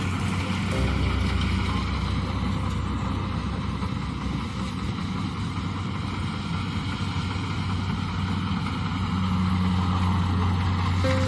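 Diesel engine of Kubota rice-farming machinery running steadily, a constant low hum with mechanical noise over it.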